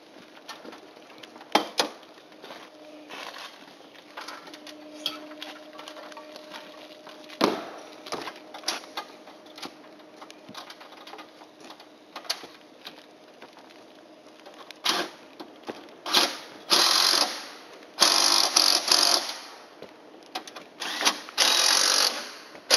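Cordless drill driving the fasteners that clamp solar panels to the roof mounting rails, in several short runs of about a second each in the second half. Before that there are scattered knocks and clicks as the panels and hardware are handled.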